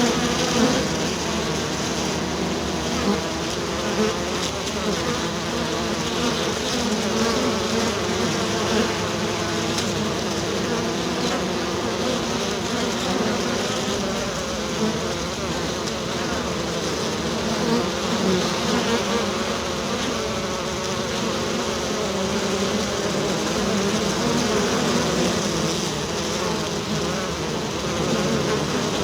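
A swarm of bees buzzing steadily, many overlapping wavering drones around a low hum.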